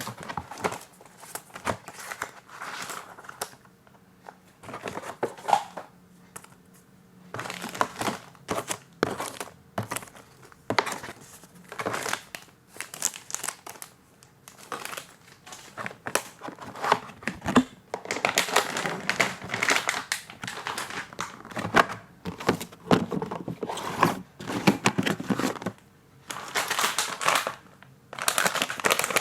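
Motherboard packaging being handled and opened: irregular crinkling and rustling with sharp clicks, broken by a few short quieter pauses.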